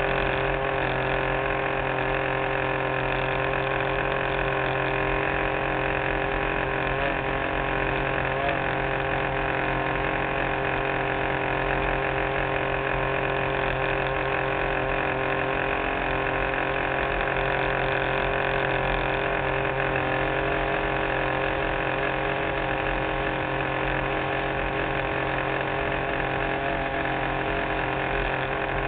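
R/C model plane's engine running steadily at an unchanging pitch in flight, heard from on board through a waterproof camera housing that muffles it.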